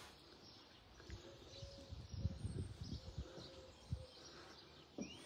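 Quiet outdoor ambience with faint bird chirps and a few soft low thumps.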